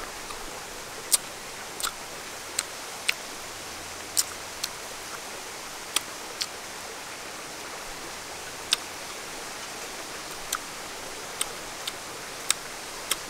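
Small sharp clicks and snaps at irregular intervals, about one a second, from langsat fruit being peeled by hand and eaten close to the microphone, over a steady hiss.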